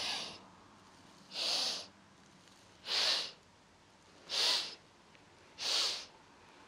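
A woman inhaling through the nose in staged sips: five short, sharp sniffs about a second and a half apart, each drawing in a little more air until the lungs are full, as in a yogic breathing exercise.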